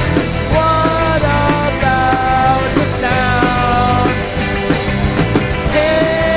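Original indie rock song playing: a melodic lead line of held notes stepping up and down over a dense full-band accompaniment.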